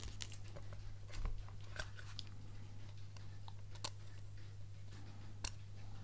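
Scattered small clicks and taps of a metal phone case being taken apart by hand, as the aluminium front frame is lifted off the phone. The sharpest click comes about a second in, over a steady low hum.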